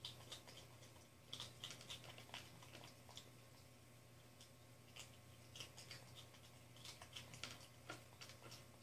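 Quiet, scattered dry clicks and crunches of cereal pieces as a capuchin monkey picks them off a wooden tabletop and chews them, coming in short clusters with pauses between, over a faint steady low hum.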